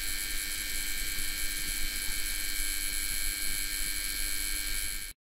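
A steady electrical buzz: several held high tones over a low hum. It cuts off abruptly near the end.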